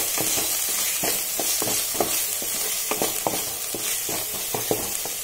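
Wooden spatula stirring and scraping onion-garlic masala paste around a pan, in irregular strokes, over a steady sizzle of the paste frying in hot oil.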